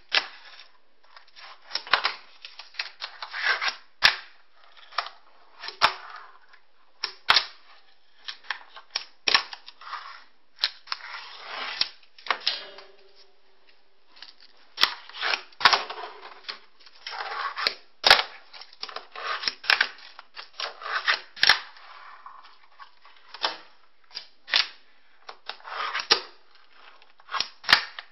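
Fingerboard on a wooden windowsill: sharp clacks of the board popping and landing, at irregular intervals, with short stretches of the small wheels rolling across the wood between them.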